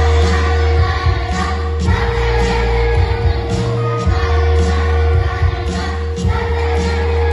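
Children's choir singing a medley of 1970s Turkish pop songs over instrumental accompaniment with a heavy bass and a steady beat, the voices holding one long note through most of it.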